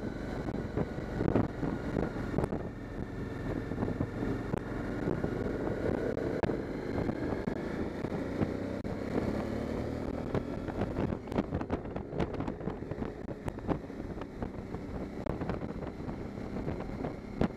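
Motorcycle engine running under way, its pitch slowly rising and falling with the throttle, with wind buffeting the microphone in frequent sharp knocks.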